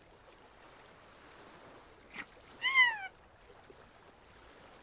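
A short cartoon-style cry, about half a second long, that rises briefly and then slides down in pitch, about two and a half seconds in, just after a brief blip. A faint steady hiss lies underneath.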